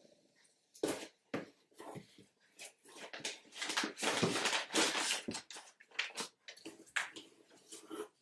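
Packaging rustling, with light knocks and clicks, as items are handled and rummaged through in a parcel box. The rustling is densest and loudest around the middle.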